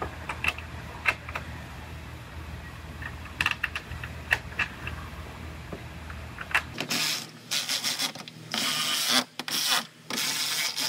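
Irregular light metallic clicks and taps from hand work fitting a tail light and its mounting nuts. After about seven seconds, louder stretches of rough rustling, scraping noise come in, broken by short pauses.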